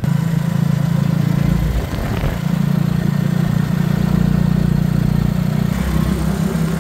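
Engine of a moving road vehicle running at a steady speed, a steady hum with wind and road noise over it; it wavers and dips briefly about two seconds in.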